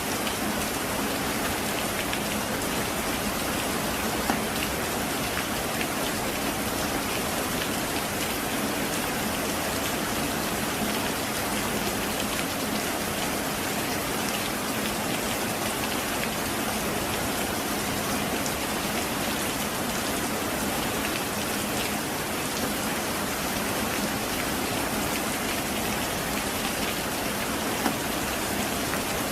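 Heavy rain falling steadily: a dense, even hiss of many drops. A couple of single drop hits stand out briefly, one about four seconds in and one near the end.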